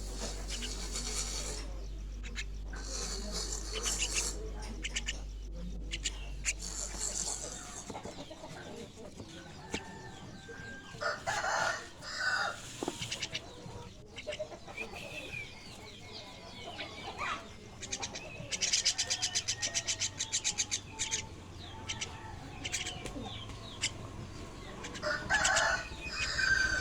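Young starlings calling in repeated bursts of harsh, rapid chatter, with quieter gaps between the bursts; the longest run comes about two-thirds of the way in.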